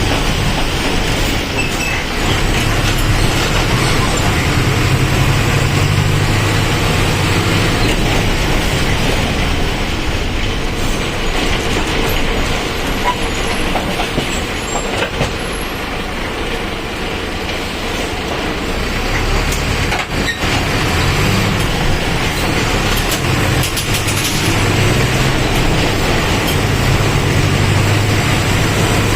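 Diesel engine of a Mercedes-Benz OF-1722M Euro III bus running while the bus is driven, its note climbing in steps under acceleration, easing off in the middle, then climbing again. A single sharp knock comes about twenty seconds in.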